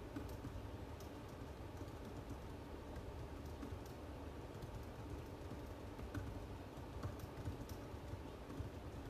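Faint, irregular clicking of someone typing on a computer keyboard, a few keystrokes at a time, over a steady low room hum.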